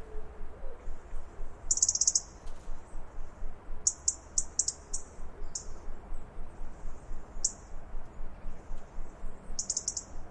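European robin giving its alarm call: sharp, very high ticks, some single and some in quick runs of two to four, repeated every second or two.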